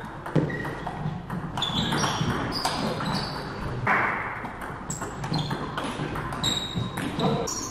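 Table tennis rally: the ball clicking off the bats and the table in quick alternation, about two sharp ticks a second, each with a brief high ping.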